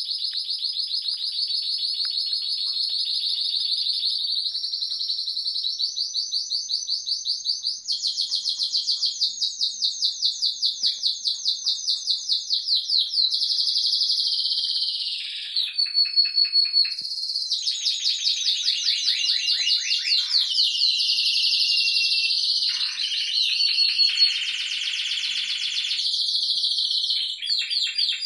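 Timbrado Español Original canaries singing a continuous contest song of rapid rolls and trills, switching from one phrase to the next every few seconds with shifts in pitch.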